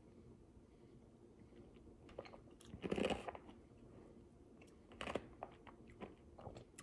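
A man's faint breathing and sniffling through a runny nose, with one short, noisy breath about three seconds in and a few small mouth clicks about five seconds in.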